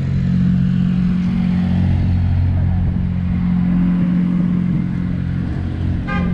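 Street traffic with a steady low engine hum from idling and passing motor vehicles. A brief high-pitched sound cuts in near the end.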